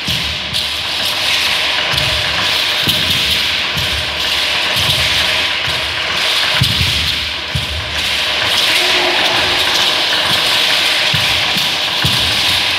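Seed-pod leg rattles (ayoyotes) on dancers' ankles shaking with each step, a dense rattle that swells and dips, over repeated low thuds of stamping feet on a wooden floor.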